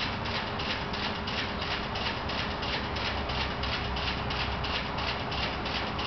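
Joseph Newman's large-rotor motor running, with an even rhythmic ticking from its spinning rotor and switching, about four to five ticks a second, over a steady hum.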